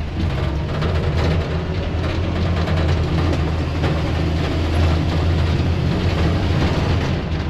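Tracked dozer's diesel engine running steadily under load, with the tracks clanking and rattling as it pushes dirt back into ruts.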